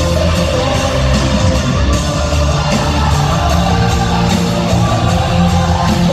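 Rock band playing live in an arena: electric guitars, drums and a lead vocal, loud and continuous.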